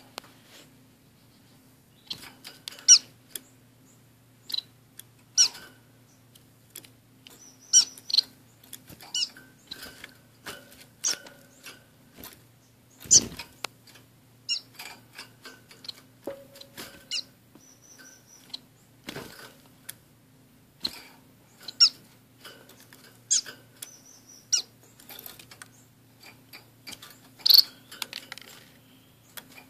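Small pet finches, orange-cheeked waxbills and a society finch, giving short high chirps at irregular intervals in a wire cage, with a couple of louder knocks about a third and two thirds of the way through. A faint steady low hum runs underneath.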